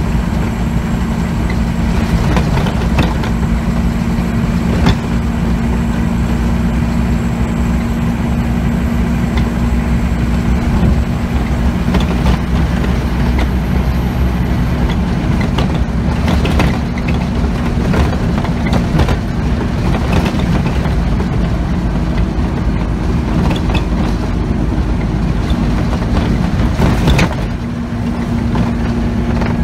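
Interior of a moving Scania OmniCity single-decker bus: the diesel engine drones steadily while the bus body and fittings knock and rattle over a bumpy road, with sharp knocks every few seconds.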